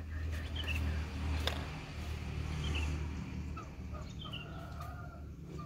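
Short high bird chirps, a few scattered notes, over a steady low rumble, with a single sharp click about one and a half seconds in.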